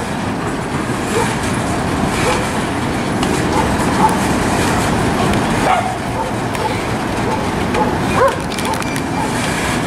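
Freight cars of a CSX train rolling slowly past, their wheels running on the rails in a steady rumble, with a few short squeaks about four, six and eight seconds in.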